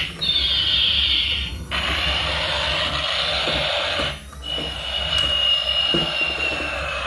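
Electronic sound effects from a battery-powered toy vehicle: a high tone that falls in pitch and cuts off after about a second and a half, then a long steady high tone that sinks slightly near the end.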